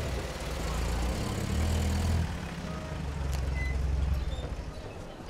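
Old military truck's engine running as it drives up and pulls to a stop, the low drone shifting in pitch and then dying away about four seconds in. A single sharp click a little after three seconds.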